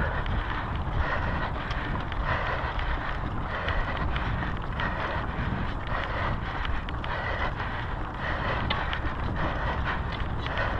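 A mountain bike rolling fast over a loose dirt and gravel trail, with wind rushing over the handlebar camera's microphone. Small clicks and rattles from stones and the bike run through it.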